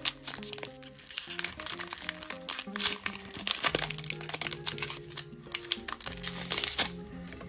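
Foil wrapper of a Pokémon trading-card booster pack crinkling in rapid crackles as it is torn open by hand. The crackling thins out near the end, over background music.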